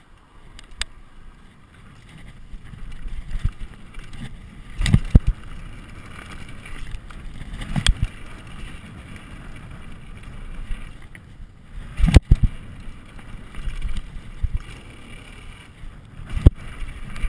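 Mountain bike ridden fast down a dirt trail: a steady rumble of tyres on the ground and wind on the microphone, broken several times by sharp clunks and rattles of the bike over bumps.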